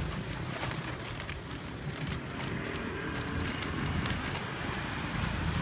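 Plastic snack bags crinkling and rustling as they are handled, with many short sharp crackles, over a steady low rumble of road traffic.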